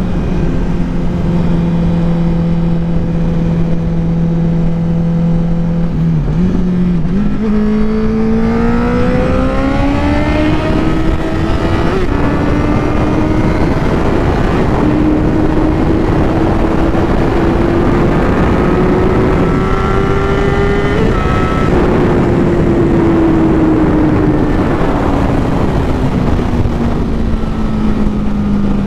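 2009 Honda CBR1000RR's inline-four engine and exhaust under way at speed with wind rushing past. The engine note holds steady, wobbles briefly about six seconds in, then climbs in pitch for about fourteen seconds with a couple of small steps as the rider accelerates through the revs, before falling steadily as the throttle closes.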